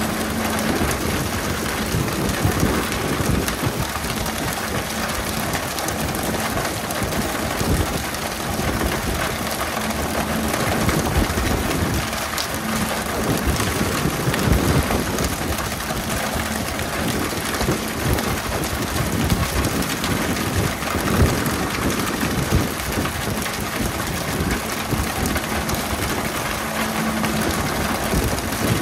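Steady hiss of the boat's water sprayers showering the sea surface, over the low hum of the vessel's engine, with occasional knocks.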